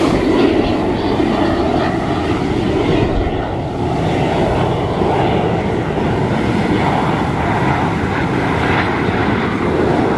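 Jet noise from an Aermacchi MB-339 jet trainer's turbojet as it flies overhead: a steady, loud rumble.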